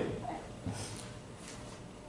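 A quiet pause of room tone through a pulpit microphone, with a soft knock about two-thirds of a second in and a few faint rustles.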